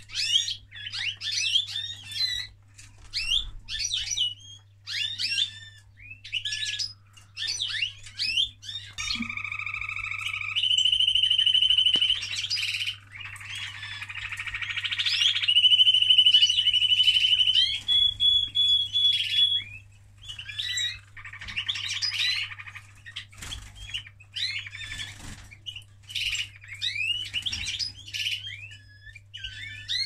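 Male canary singing its courtship song: runs of quick chirps, then long rolling trills held for several seconds at a time, loudest about halfway through, then back to short chirpy phrases.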